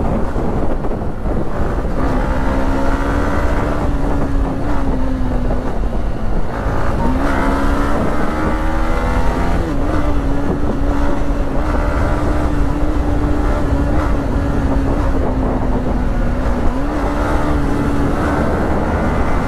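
Yamaha motorcycle engine running at road speed under a low wind rush on the microphone. The engine pitch holds mostly steady, dipping and climbing again with throttle changes about seven, nine and seventeen seconds in.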